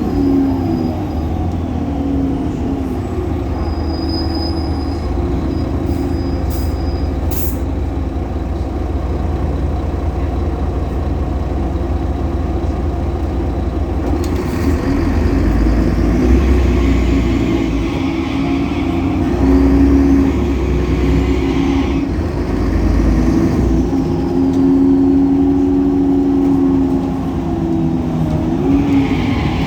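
A Solaris Urbino 18 articulated bus driving, heard on board: its DAF Paccar PR265 diesel engine running with its loud belt noise, through the ZF Ecolife automatic gearbox. In the second half the bus works harder, and a higher whine rises and falls three or four times.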